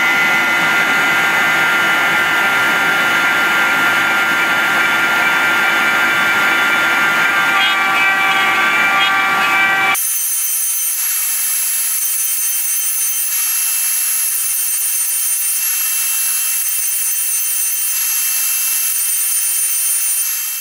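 CNC router spindle running steadily, its bit milling round pockets, a loud machine noise with a high-pitched whine. About halfway through the sound changes abruptly, losing its low end and leaving a thinner high whine.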